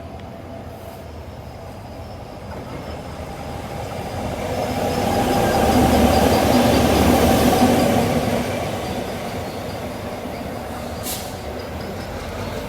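Queensland Rail diesel locomotive 2410 running light past a station platform: the engine and rolling wheels grow louder to a peak about five to eight seconds in, then fade as it moves away. A sharp click sounds near the end.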